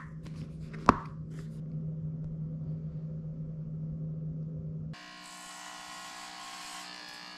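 A sharp click about a second in as the black hair-clipper case is handled, over a steady low hum. From about five seconds in, Andis electric hair clippers run with a steady buzz.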